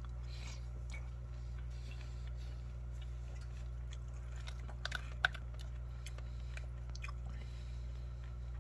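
A person chewing crunchy oat cereal with almond pieces, with faint crunches and a sharp click about five seconds in, over a steady low hum.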